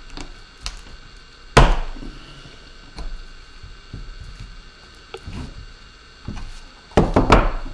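Small screwdriver prying and tapping at the plastic shell of a DJI Phantom 4 Pro drone, giving scattered clicks and knocks: a loud knock about a second and a half in and a quick run of loud knocks near the end.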